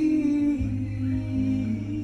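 Live acoustic pop music: sustained hummed or sung notes that slide to new pitches over a steady low bass note.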